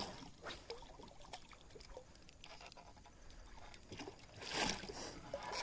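Faint water trickling and lapping beside a boat, with a few light clicks and a short splash about four and a half seconds in, as a hooked trout is brought to the net.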